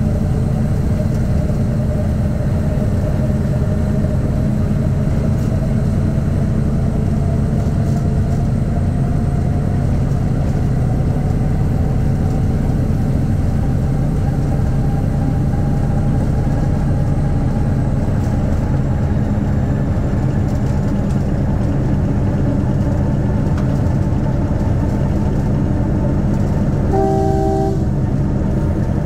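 Class 14 diesel-hydraulic locomotive's Paxman Ventura engine running steadily under way, with a whine that climbs slowly in pitch over the first half. Near the end the locomotive's horn sounds once, briefly.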